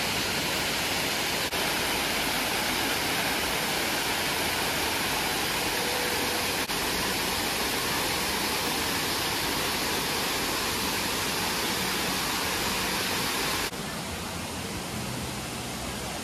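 Steady, loud rush of falling water, as from a waterfall, with brief breaks a couple of times; about fourteen seconds in it steps down quieter and duller.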